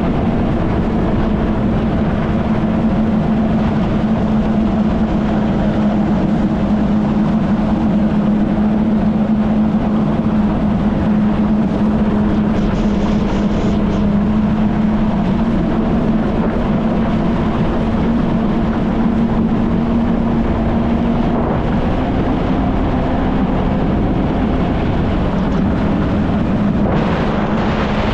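Kawasaki Ultra 160 LX-S jet ski's naturally aspirated four-cylinder engine running at a steady speed, a constant drone under a loud rush of wind and water.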